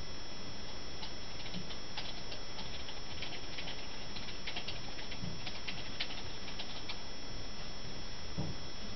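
Computer mouse being moved about on the desk: a scatter of faint quick ticks between about one and seven seconds in, over a steady hiss and a faint high whine.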